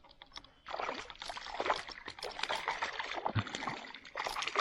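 Water splashing and sloshing around a small boat, with light knocks and rustles, beginning about a second in, most likely from a hooked fish being played at the surface.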